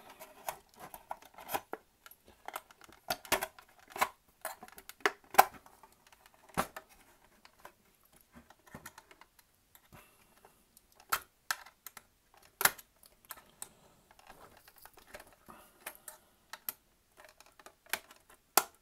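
Irregular sharp clicks and scrapes of hands handling and prying at a PC CD-ROM drive's sheet-metal and plastic casing while working its cover loose.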